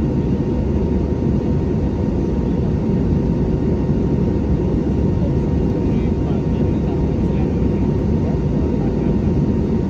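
Jet airliner's steady engine and airflow rumble, heavy in the low end, with a faint steady whine above it.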